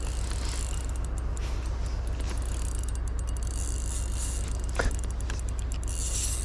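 Steady rush of flowing creek water, with a single short knock just under five seconds in.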